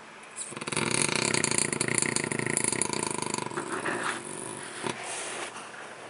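French bulldog snoring in its sleep: a loud, rattling snore starts about half a second in and lasts about three seconds, then quieter breathing with a soft click near the end.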